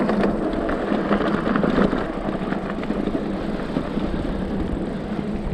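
Cyrusher Trax electric mountain bike being ridden over a sandy dirt trail: a steady rumble of the knobby tyres on loose dirt, with the rattle of the bike and a steady low hum.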